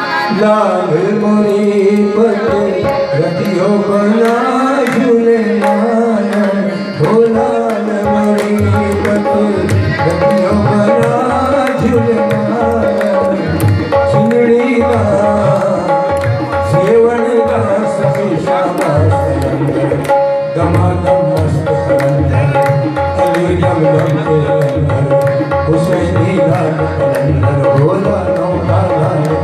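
Tabla playing a steady, busy rhythm under a harmonium holding sustained notes, with a man singing in a gliding, ornamented ghazal style.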